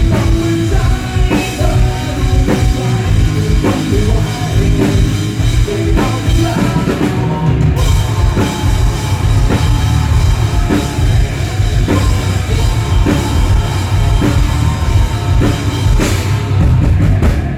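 Loud rock music with a driving drum kit and heavy bass, played at full volume for a sound check.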